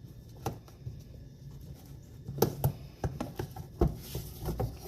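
Sharp plastic clicks and knocks as the tabs of a car's wheel-well access panel are worked and the panel is pried loose, in several separate strokes.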